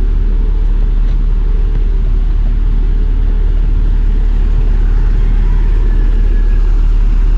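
Diesel bus engine idling: a steady, loud low rumble.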